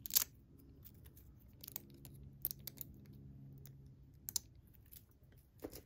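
Scattered small clicks and crackles as thin clear plastic protective film is picked at with fingernails and peeled off a metal zipper pull, the loudest about a quarter second in.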